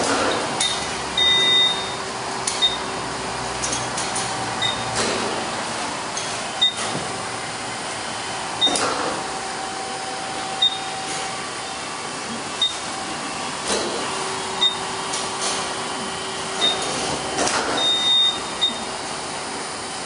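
Lely Juno robotic feed pusher's electric drive whirring steadily as it creeps along the feed alley, over a steady mechanical hum, with a short high tick about once a second.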